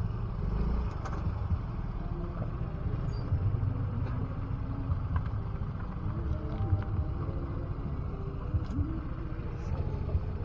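A motor scooter engine running at low revs, a steady low rumble.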